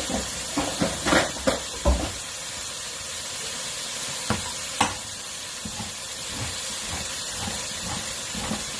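Chicken frying in oil in a pan, a steady sizzle, with several knocks and clinks of utensils and cookware in the first two seconds and twice more about four to five seconds in.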